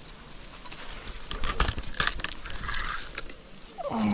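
Spinning reel being cranked and handled while a hooked fish is played on an ultralight rod, giving scattered clicks and knocks, with a high, steady insect buzz in the first second or so.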